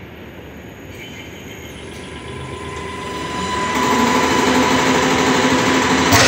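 Common-rail injector test bench starting up: its drive motor and Bosch high-pressure pump spin up, growing louder over about three seconds into a steady hum and whine as rail pressure builds for an injector test at 1,350 bar. A single sharp click comes near the end.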